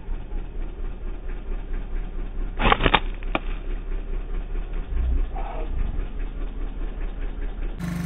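An engine running steadily at idle, a low even throb. About three seconds in come a few sharp clicks or knocks close together, the loudest sounds here.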